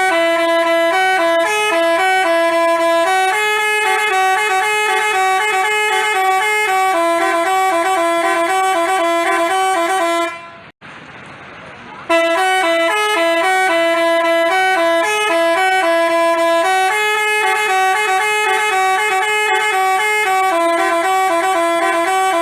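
Telolet musical bus horn of the Basuri type playing a melody in stepped, held notes. It plays two long phrases with a short break about ten and a half seconds in.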